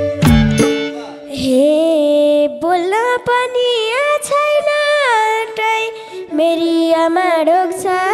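Live Nepali dohori music: a female voice sings long, sliding, ornamented notes over a steady held accompaniment, after a single drum beat about half a second in.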